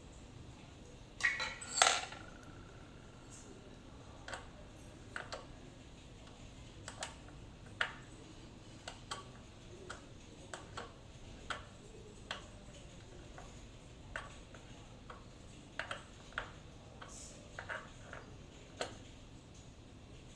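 Metal clinking and tapping on an exercise bike's crank shaft and its parts during the repair: a loud ringing clink about two seconds in, then scattered light clicks every second or so.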